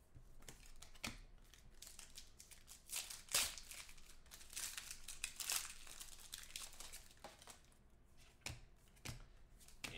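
A foil trading-card pack wrapper crinkling and tearing as it is pulled open, with a sharp rip about three and a half seconds in, among the rustle of cards being handled.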